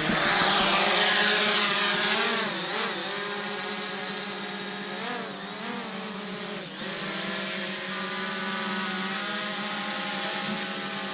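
Quadcopter camera drone's motors and propellers whining just after lift-off, louder at first and then steadier, with the pitch dipping and rising a few times as it manoeuvres.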